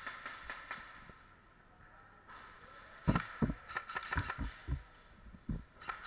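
Dull thumps and light clicks of a player moving with an airsoft rifle, footsteps and gear knocking. They come in an irregular run of about three a second from about halfway through, after a few light clicks at the start.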